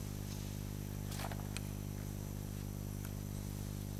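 Steady low electrical hum over faint hiss, with a brief soft rustle a little over a second in and a couple of faint clicks.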